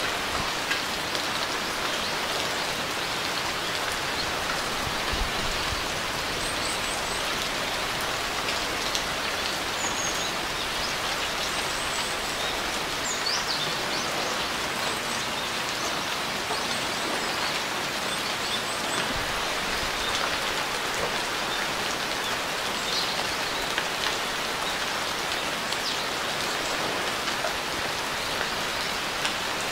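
Steady rain falling, an even hiss of drops on surfaces, with faint short high bird chirps now and then through the first two-thirds.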